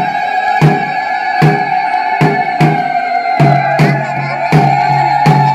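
Music: a long, slightly wavering melodic note from a wind instrument, held near one pitch over a drum struck about two to three times a second.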